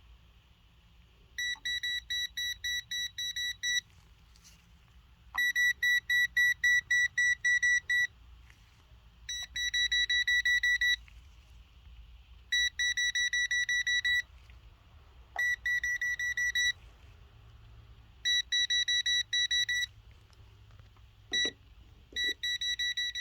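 Electronic beeper sounding quick, high-pitched beeps in seven bursts of one and a half to two and a half seconds each, with short pauses between. A faint knock comes near the end.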